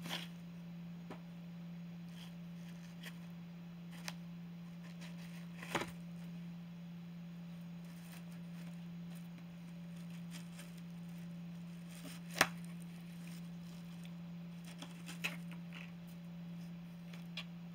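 Kitten biting and tearing at a cardboard box and a frayed rope: a handful of scattered crunching snaps, the loudest about two-thirds of the way through, over a steady low hum.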